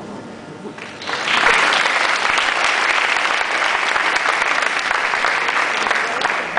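Audience applauding, starting about a second in and holding steady.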